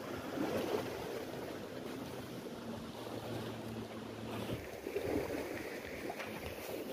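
Wind buffeting the microphone over the wash of sea waves, with a faint low steady hum under it for the first four seconds or so.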